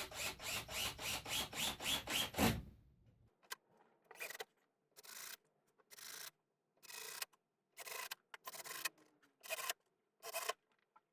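Hand tool being worked back and forth on wood, rubbing and rasping: first a quick run of even strokes, about four a second, then slower single strokes about a second apart.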